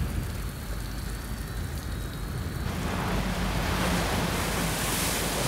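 Hurricane wind and driving rain, a steady rushing noise with a low rumble, which swells sharply about halfway through as a stronger gust comes in.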